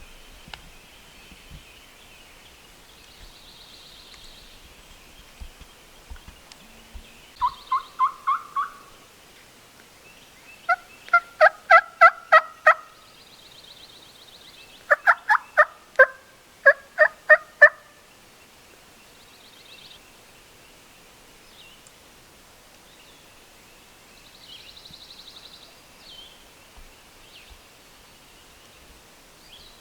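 Turkey yelping: three runs of evenly spaced yelps, each of five to eight notes, loud and close, the first beginning a little over seven seconds in. Faint songbird chirps sound behind it.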